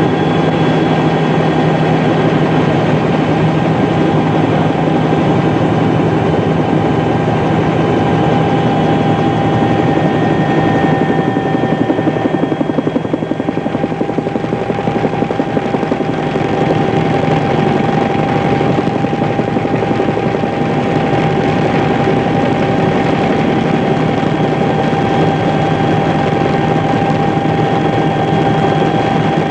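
A steady engine drone with a constant high whine over a low rumble, holding the same pitch throughout.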